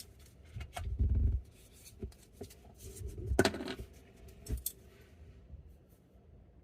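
Objects being handled on a work surface: a few sharp clicks and dull knocks, the loudest click about three and a half seconds in, quietening after about five seconds.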